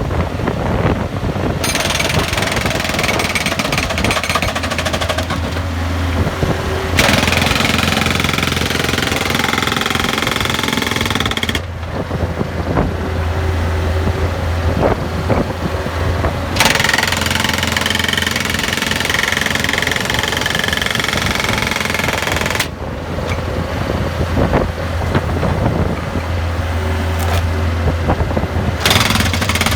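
Skid steer loader's hydraulic breaker hammer, an AB-60SSL, pounding rapidly over the loader's running engine. The hammering goes in long bouts, stopping twice for about five seconds while the engine keeps running, then starting again.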